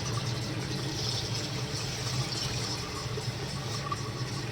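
Steady rush of water in a kitchen, over a low hum.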